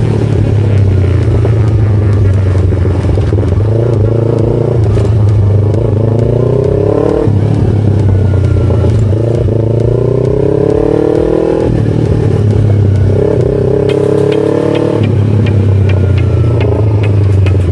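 2017 Yamaha R3's parallel-twin engine accelerating through the gears, its pitch climbing and then dropping sharply at each upshift, three times.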